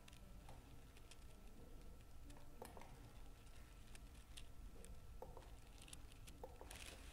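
Near silence: room tone with faint scattered clicks from a computer's mouse and keyboard being worked, and a faint steady tone that stops near the end.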